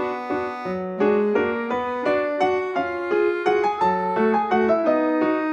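Background keyboard music with a piano sound: a melody of steadily paced notes over lower chords.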